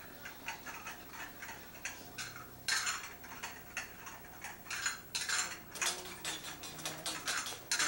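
Irregular clicks and taps from hands working a bass guitar's strings and tuning pegs, with a few faint plucked notes.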